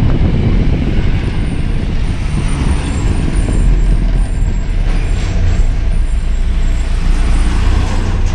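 Truck engine running steadily while driving, a low drone heard from inside the cab, mixed with road and tyre noise.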